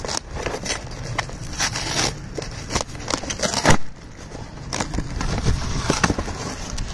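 Cardboard shipping box being torn open by hand: a run of short ripping and crackling tears of cardboard and paper, the loudest about three and a half seconds in, then a longer rough tearing stretch.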